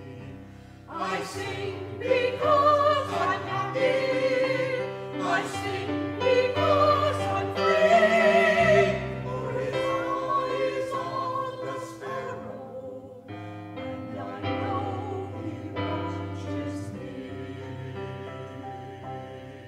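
Small mixed church choir singing an anthem with organ accompaniment, the voices loudest about halfway through, then easing into a long held final chord that fades away.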